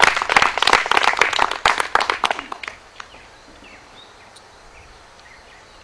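Small audience applauding at the end of a poem, the clapping thinning and dying out about three seconds in. Faint bird chirps over quiet outdoor background after it.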